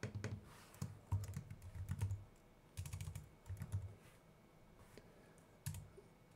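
Typing on a computer keyboard: runs of keystrokes in several short bursts with pauses between them, and a last brief flurry near the end.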